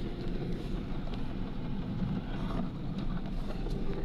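VAZ 2110 coasting at speed with the throttle released, heard from inside the cabin: steady drivetrain and road noise, the load-dependent hum from the transmission nearly faded. Someone the owner asked puts the noise down to a broken tooth in the differential gears.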